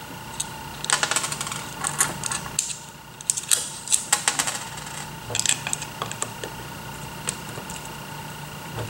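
Small metal screws and hardware clicking and clattering in irregular clusters as they are handled and fitted by hand onto an HDPE plastic robot base plate, with a screwdriver at work near the end. A faint steady hum runs underneath.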